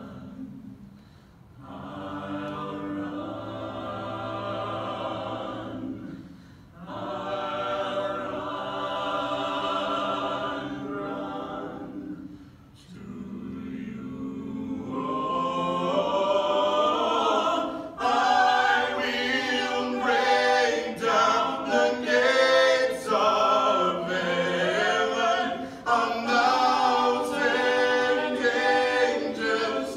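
Six-voice a cappella ensemble (bass, baritone, tenor, alto and two sopranos) singing in close harmony, long held chords broken by short pauses between phrases. About eighteen seconds in, the voices swell louder and fuller.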